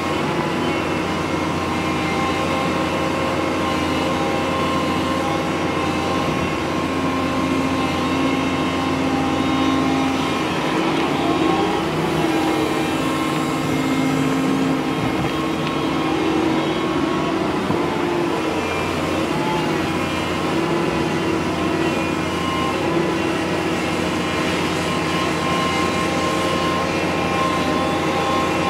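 Doosan DX225LCA tracked excavator working: its diesel engine runs steadily with the hum of the hydraulics, and the pitch shifts a little in the middle as the boom swings out and the bucket dumps its load.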